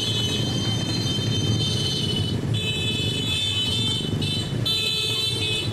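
A column of motorcycles and cars running past with a steady engine rumble, and horns sounding on and off several times over it.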